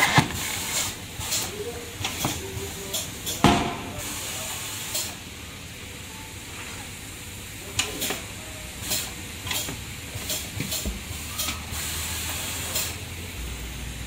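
Pneumatic bead breaker on a tyre changer pressing the bead off a tyre on an alloy wheel: many short hisses of compressed air, with sharp clunks at the start and about three and a half seconds in.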